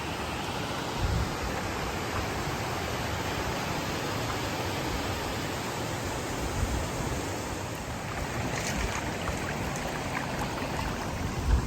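Waterfall and creek water rushing steadily, with a brief low bump about a second in.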